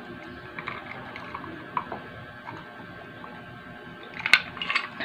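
Drinking iced cola from a mug: faint scattered ticks of ice and fizz, then a few sharp clinks of ice cubes against the mug about four seconds in.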